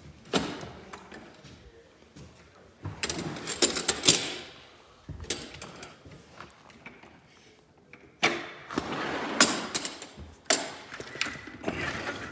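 Sliding glass patio door being worked open: several bursts of rattling and rolling as the door and its frame are pushed along the track.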